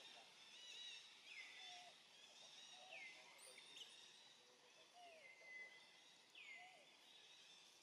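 Faint forest ambience of birds calling. One call slides down in pitch and repeats about every one and a half seconds over softer chirping.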